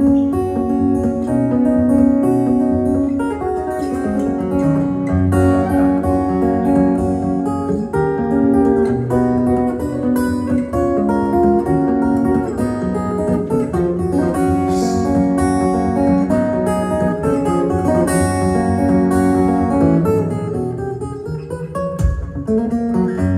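Solo steel-string acoustic guitar played fingerstyle, bass notes and melody together, with a short low thump near the end.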